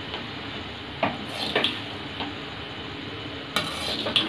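A perforated metal ladle scraping and clinking against a metal kadai as puffed-rice upma is stirred, in several short, separate strokes.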